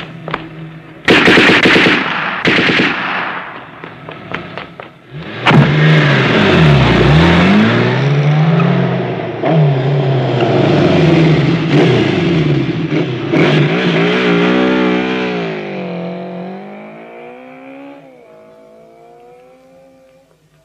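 Two loud bursts of automatic gunfire about a second in, then a car engine revving hard through sweeping rises and falls in pitch as it speeds away, fading out toward the end.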